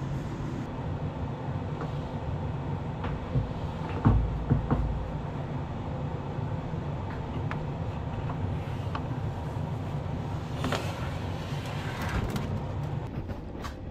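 An enclosed 3D printer being handled and set down on a wooden workbench: a heavy thump about four seconds in, a second knock just after, and lighter clicks and scrapes later, over a steady low hum.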